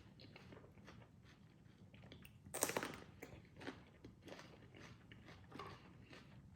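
A person eating, close to the microphone: one loud crunchy bite about two and a half seconds in, with quieter chewing clicks before and after it.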